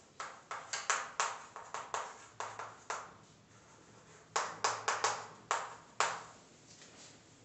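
Chalk writing on a chalkboard: a quick, irregular run of sharp taps and short scratches as letters are written, in two bursts with a pause of about a second between them.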